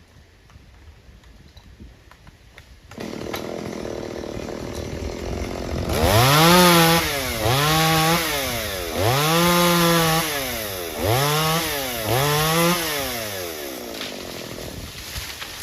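Chainsaw engine comes in about three seconds in and runs steadily, then revs up about five times, each time its pitch climbing fast and sinking back, before settling lower near the end.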